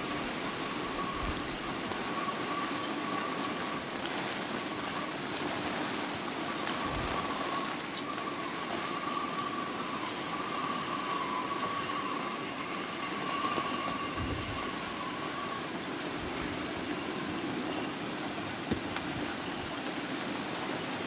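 Storm sound effect of wind and heavy sea: a steady rushing noise, with a faint whistling tone held through most of it that fades out about three-quarters of the way through, and two dull low thumps.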